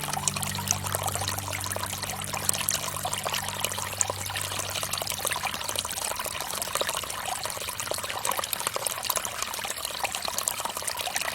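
Water from a bamboo fountain trickling and splashing steadily, with many small droplet ticks.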